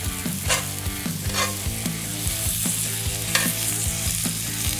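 Sliced bell peppers and onions sizzling in a hot cast iron skillet with butter, stirred and tossed with metal tongs that clack against the pan now and then.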